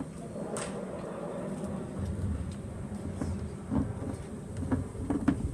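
Plastic wheelie bin's wheels rumbling over brick pavers as the bin is tipped back and rolled along, getting louder about two seconds in, with a few sharp knocks.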